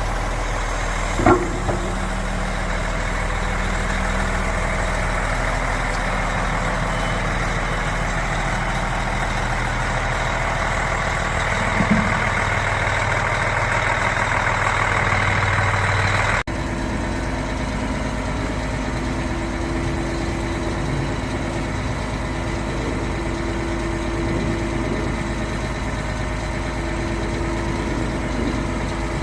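The diesel engine of a Junjin 50 m concrete pump truck running steadily, with a short knock about a second in. About halfway through, the sound changes abruptly to a different steady engine note.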